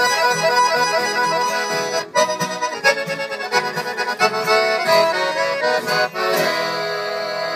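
Accordion playing a Brazilian country-style tune (modão), quick running notes that settle into a held chord near the end.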